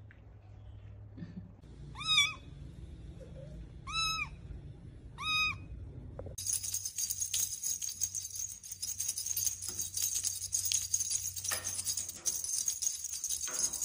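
A kitten mewing three times, short high-pitched mews about a second and a half to two seconds apart. About six seconds in, a steady jingling and rattling of small bells takes over.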